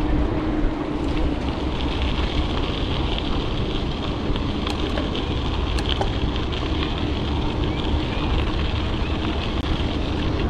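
Wind buffeting the microphone and tyre rumble from a mountain bike being ridden, a steady noisy rush with a few faint ticks.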